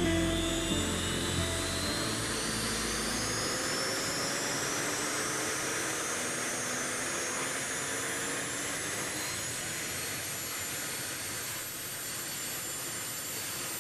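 Boeing CH-47 Chinook's twin turboshaft engines spooling up at start-up, a whine climbing slowly and steadily in pitch over a rushing hiss as the tandem rotors begin to turn. Music fades out in the first few seconds.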